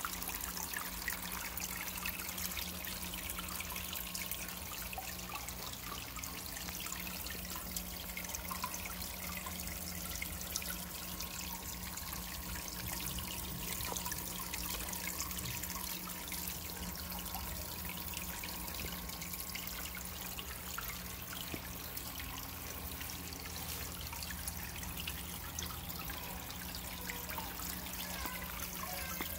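Water trickling steadily down a planted water wall, with a steady low hum underneath.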